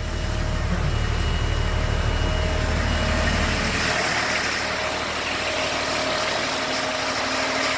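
LMTV military truck's diesel engine idling steadily; its deep rumble drops away about four seconds in, leaving a steadier hiss with a faint whine.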